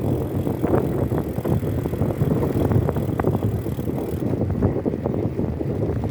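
Mountain bike riding over the road, with a steady rumble of wind on the microphone and tyre noise, and frequent light rattles and clicks from the bike.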